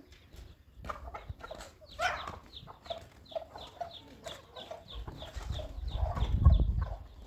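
Domestic chickens clucking, a run of short repeated calls about two to three a second. A low rumble swells near the end and is the loudest sound.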